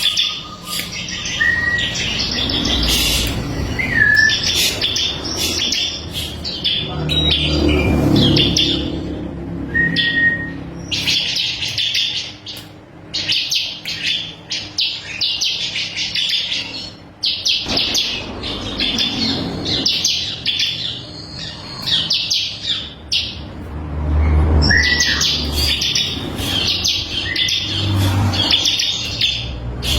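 Bar-winged prinia (ciblek kristal) singing: long runs of rapid, high chattering notes, broken by a few short clear whistles. A low rumble sits under it now and then.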